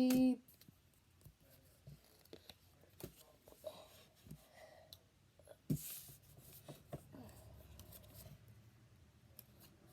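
Faint handling sounds of trading cards being flipped and slid through the hands: light clicks and soft rustles, with one brief louder rustle about six seconds in.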